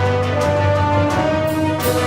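Background music: an upbeat theme-style track with held melody notes, a steady bass and a regular beat.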